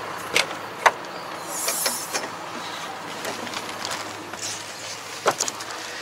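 Tractor cab door and steps being handled as someone climbs into the cab: three sharp clicks and knocks, the loudest about a second in and another near the end, with a brief rustle in between, over a low steady hum.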